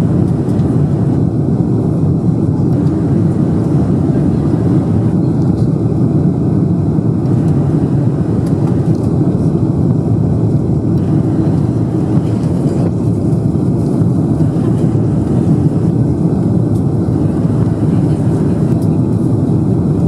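Boeing 747-400 engines heard from inside the passenger cabin: a loud, steady, unbroken drone.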